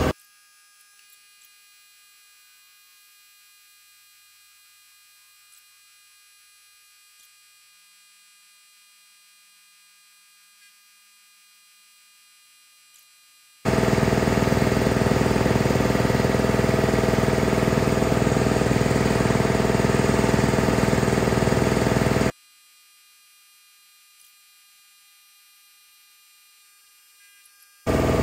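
A 115-volt MCH3 low-consumption high-pressure air compressor running steadily while filling an air bottle toward 300 bar. It comes in abruptly about fourteen seconds in and cuts off abruptly some eight seconds later. Before and after it there is only a faint steady hum.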